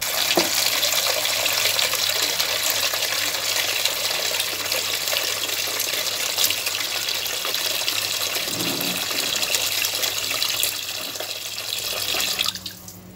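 Tap water pouring in a steady stream into a metal basin of tilapia being rinsed. It starts suddenly and stops shortly before the end.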